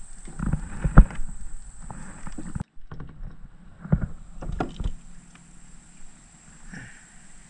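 Handling noises in a plastic kayak as a caught fish is unhooked: a run of irregular thumps and knocks, the loudest about a second in and several more close together around the middle.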